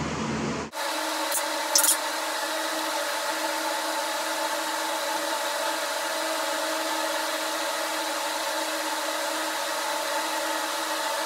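A steady, even hiss with a faint hum, starting abruptly under a second in, with two light clicks about two seconds in.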